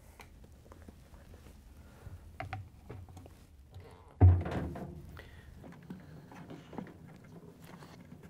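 Hands working orange spring clamps and a wire spring onto a front-load washer's rubber door bellow: light rustles and small clicks, with one loud thump about four seconds in.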